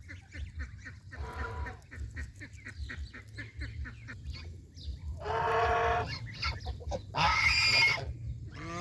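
Domestic geese honking: a short call about a second in, a longer one around five seconds in, and the loudest, harshest call near the end, with many faint short clicks in between.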